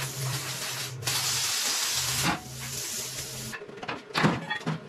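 Plasma cutter hissing as it cuts the steel plate of a wrecker bed, with a short break about a second in. It stops about three and a half seconds in and a few sharp metal knocks follow.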